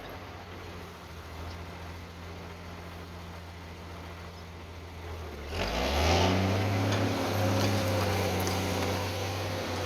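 M35A2 deuce-and-a-half's multifuel turbodiesel engine running steadily, then revving up about five and a half seconds in and holding at a higher, louder pitch.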